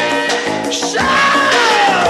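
Music from a sung Persian song, with no words in this stretch; about halfway through, a long note slides slowly downward.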